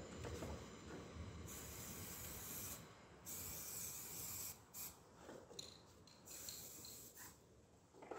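Aerosol spray paint can hissing in several bursts of about a second each, with short pauses between them.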